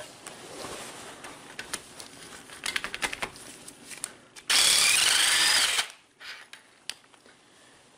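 Light clicks and knocks as the tool is set on, then a Matco Tools cordless impact wrench runs in one short burst of just over a second, about four and a half seconds in, a dense hammering with a rising motor whine, breaking a heated, rust-seized bolt loose.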